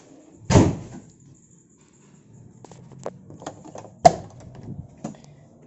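A loud thump about half a second in, then a few small clicks and a sharp latch click about four seconds in as the car's rear hatch handle is pulled to release the latch.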